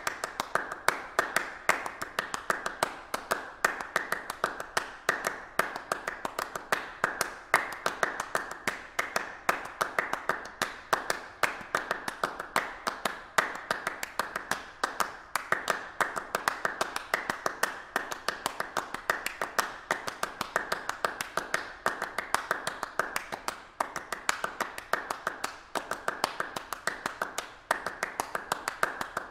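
Rapid, unbroken run of sharp claps or taps, several a second at an uneven rhythm.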